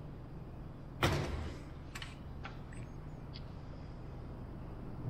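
A single wooden knock about a second in as the wooden stabilizer frame is shifted on the work table, followed by a few faint light clicks, over a low steady hum.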